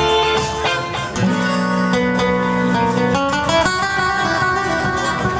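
Live guitar music. A nylon-string classical guitar is fingerpicked, with held low notes under it, and the texture changes about a second in and again a little past three seconds.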